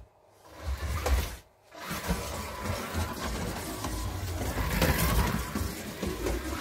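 Slot cars running on the track, their small electric motors and wheels on the plastic track swelling as a car passes about a second in, dipping briefly, then running on with another peak near five seconds.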